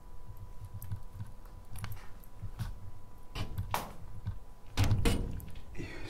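Irregular soft thumps of footsteps with a few sharper knocks and clatters, the loudest about five seconds in.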